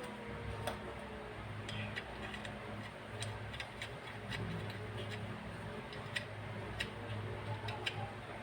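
Light, irregular metallic clicks of hand tools and small metal parts being handled during reassembly of an oil-free compressor's cylinder head, over a steady low hum.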